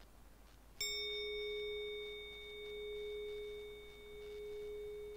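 A single bell-like metal tone struck once about a second in, then ringing on as one steady low note that swells and fades in slow waves, its higher overtones dying away first.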